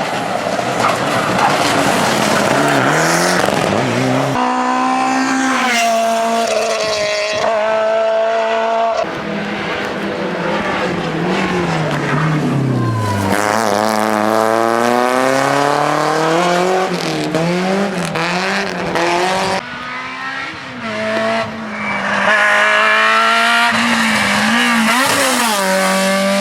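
Rally cars at full throttle on a special stage, engines revving up through the gears with repeated rising climbs and sudden drops at each shift or lift, one car after another.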